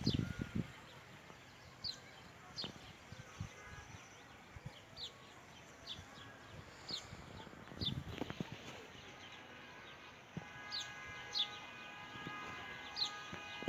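A bird repeats a short, high chirp that slides downward, about once a second. About ten seconds in, a longer held call with several even overtones joins it, and there are a couple of low thumps.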